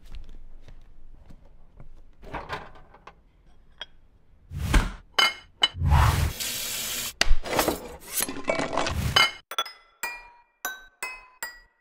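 Kitchen sounds of glass and tableware: a thump, glass clinks, about a second of steady pouring rush, then more clinks. Near the end, a quick rhythmic run of bright ringing glass tinks, like notes.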